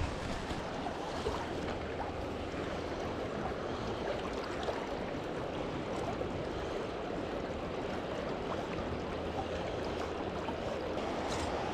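River water running steadily, with wind on the microphone.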